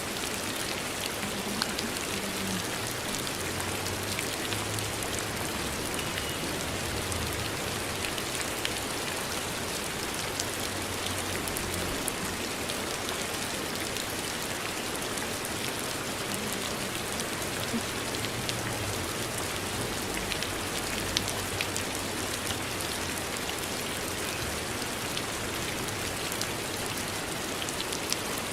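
Steady rain falling, an even hiss with scattered drop ticks, laid in as a background rain-sound track.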